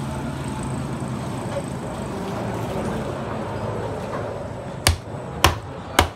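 Heavy knife chopping through a whole mangrove red snapper onto a wooden chopping block: three sharp chops about half a second apart near the end, over a steady background hum.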